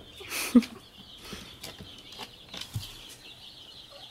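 Steady high chirping of birds, with a brief rustle ending in a sharp thump about half a second in, and a few lighter knocks after.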